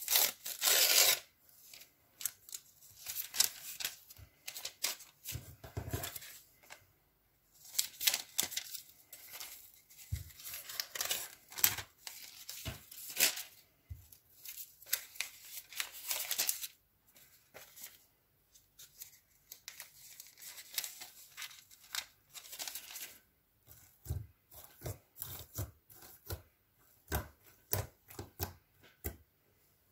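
Thin metallic foil crinkling and tearing in repeated loud rustling bouts as it is unfolded and laid over clear slime, then quieter crackles and soft pats as the foil is pressed down into the slime.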